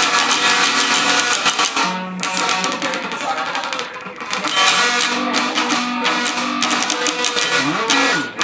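Metal music led by heavily distorted electric guitar riffs, with short breaks in the riff and sliding notes near the end.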